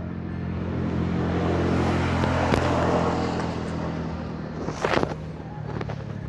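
An engine passing by, its steady hum swelling to a peak about two to three seconds in and then fading away. A few sharp knocks sound near the end.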